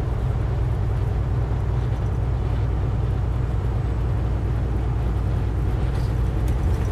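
Steady road and engine rumble inside a vehicle's cab cruising at highway speed.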